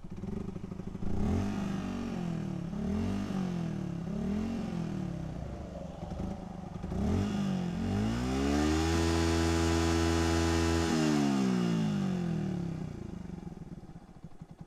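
Yamaha Vixion (old model) 150 cc single-cylinder four-stroke engine through a 3Tech Ronin Katana SE aftermarket exhaust set to its standard (closed) mode. It idles, is blipped four times, then is revved up and held at the rev limiter for about three seconds before dropping back to idle. Fairly quiet at idle, loud at the limiter.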